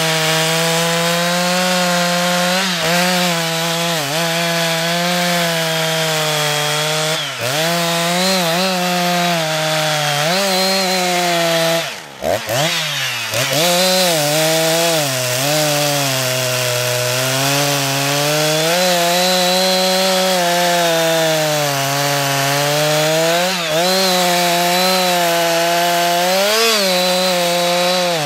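Husqvarna 357XP two-stroke chainsaw running at high revs while cutting into the base of a standing tree trunk, its pitch dipping briefly every few seconds as the chain bites into the wood. About twelve seconds in, the engine drops off for a moment, then revs back up and carries on cutting.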